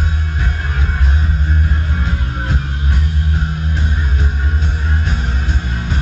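Punk rock band playing live, with strummed electric guitar over a heavy, steady bass line.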